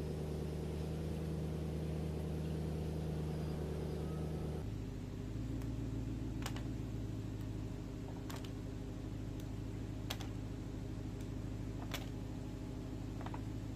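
An electric workshop machine's motor running with a steady hum. Its tone changes abruptly about four and a half seconds in, and after that light clicks or taps come about every two seconds.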